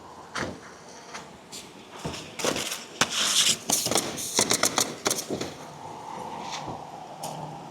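Pneumatic roofing nail guns firing as shingles are nailed down: sharp, irregular shots, with a rapid flurry of them in the middle.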